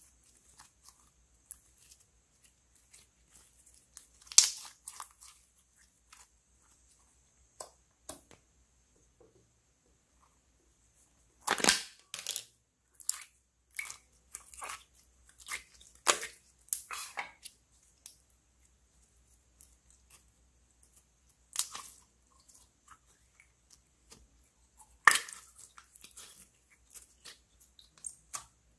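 Slime being stretched, squeezed and mixed by hand in a glass bowl, giving scattered sticky pops and crackles, loudest about four, twelve, sixteen and twenty-five seconds in.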